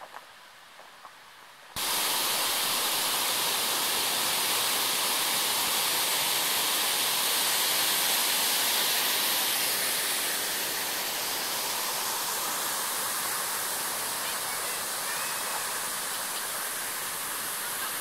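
Shallow mountain stream running over stones: a steady rush of water that starts abruptly about two seconds in, after a quiet woodland hush, and eases slightly in the second half.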